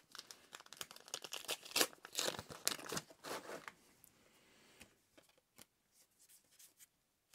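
Foil booster-pack wrapper crinkling and tearing as a pack of trading cards is opened and handled, in a run of rustles over the first few seconds, followed by a few faint clicks of cards.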